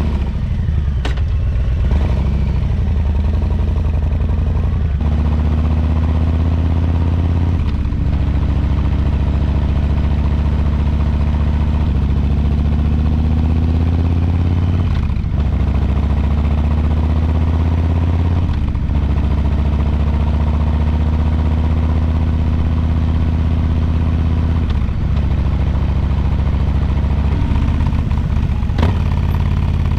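2022 Harley-Davidson Low Rider S's Milwaukee-Eight 117 V-twin pulling away and accelerating. Its pitch climbs, then breaks and drops about every three to seven seconds as it shifts up through the gears.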